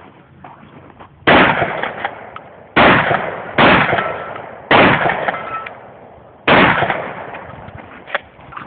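Five shotgun shots at uneven spacing over about five seconds, each trailing off in a long echo.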